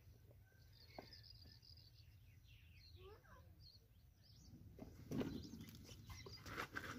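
Faint birds chirping over quiet outdoor ambience, with brief louder noises about five seconds in.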